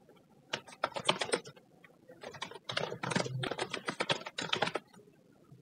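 Typing on a computer keyboard: quick runs of key clicks with a short pause about two seconds in.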